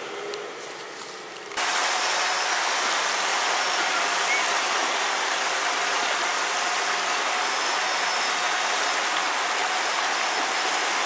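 A faint engine hum from the Land Rover Discovery 2 V8 on the dirt track. About a second and a half in it cuts off suddenly to a steady, loud rush of creek water running over shallow rapids.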